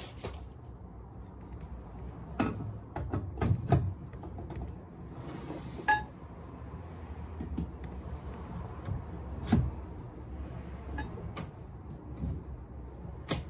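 Hollow metal support poles of an animatronic's stand clinking and knocking against each other and the metal base as they are fitted together: scattered sharp knocks, with a short ringing clink about halfway and a louder knock near the end.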